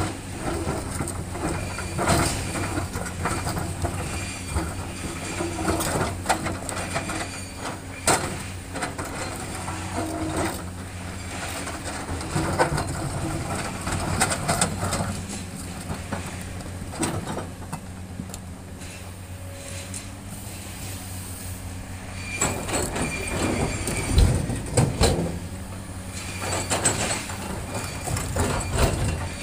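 Komatsu hydraulic excavator's diesel engine running steadily under load while its steel bucket digs into a pile of boulders, with repeated clanks, knocks and scraping of rock against steel. A cluster of heavy knocks comes about twenty-four seconds in.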